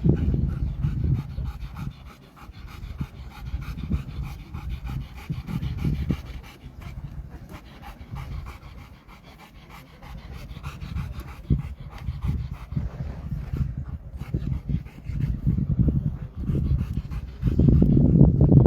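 A dog panting hard, in quick repeated breaths, growing louder near the end.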